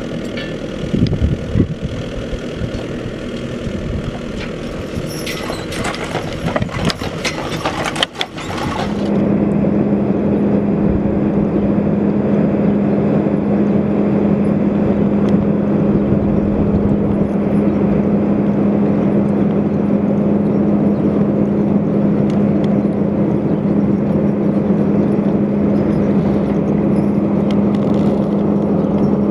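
Skid steer loader's diesel engine idling, with scattered clinks and knocks a few seconds before it cuts off abruptly about eight seconds in. After that a louder, perfectly steady engine drone with a constant low hum.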